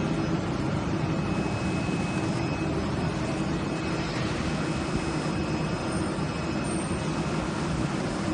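CNC oscillating knife cutting machine running while cutting cardboard: a steady mechanical noise with a low hum and a faint, thin high whine.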